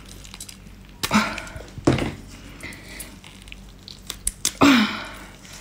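Gloved hands squeezing and working a large raw octopus to force its beak out, with wet squishing, three short exclamations of effort, and a few small scissor clicks near the end.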